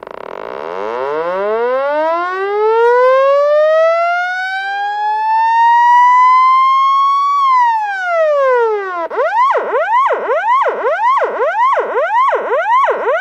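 Electronic police siren: a long wail that climbs slowly from a low pitch for about seven seconds, then drops, then switches to a fast yelp sweeping up and down about twice a second.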